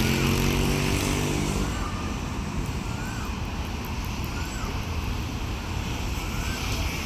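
Diesel engine of a heavy track-maintenance rail vehicle hauling ballast wagons, its engine note fading out about two seconds in and leaving a steady low rumble. A short chirp repeats about once a second.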